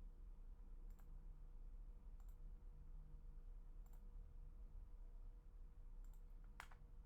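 Near silence with a faint steady hum, broken by about five faint, separate clicks of computer input.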